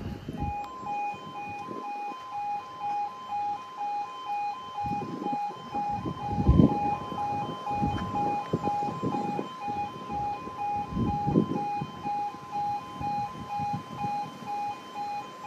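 Level crossing warning alarm sounding: a two-tone electronic yodel alternating rapidly between a lower and a higher pitch, which warns of an approaching train while the half barriers come down. Irregular bursts of low rumble come and go under it, the strongest about six seconds in.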